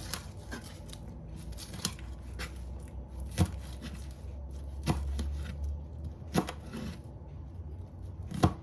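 Kitchen knife cutting onions into big pieces on a cutting board: a sharp knock of the blade on the board about every second and a half, with softer cutting and peeling sounds between.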